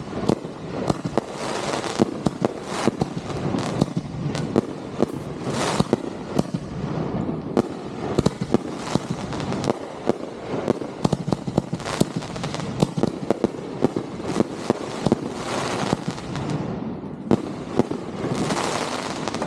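Consumer fireworks going off in a dense, continuous barrage: many sharp bangs in quick irregular succession, with swells of crackling at several points.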